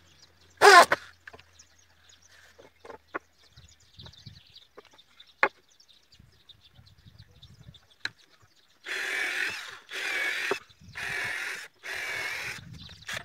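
An electric drill runs in a short burst about a second in, then light taps and knocks of wooden boards being handled. From about nine seconds in, a cordless drill runs in four short bursts of about a second each, drilling into the wooden chair boards.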